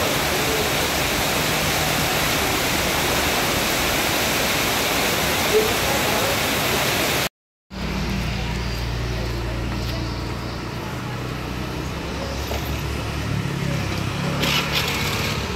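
Heavy rain pouring onto a street, a steady rushing hiss. After an abrupt cut about seven seconds in, it gives way to a quieter street-market ambience with a steady low hum and faint voices.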